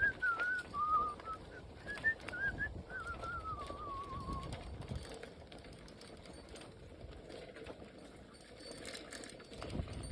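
A thin, high whistling tone that wavers up and down like a tune, then drifts downward and stops about four and a half seconds in, over a low rumble from riding a bike outdoors.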